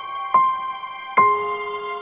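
Slow piano background music: single notes struck and left to ring, two of them a little under a second apart.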